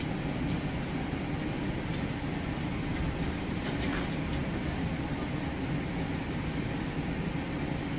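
Steady noise of maple syrup at a hard rolling boil in a stainless pot on a gas burner, being boiled to its finishing temperature, with a few faint ticks.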